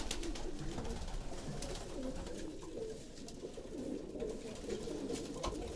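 Domestic racing pigeons cooing continuously with low, wavering coos, the courtship cooing of a male seeking his mate.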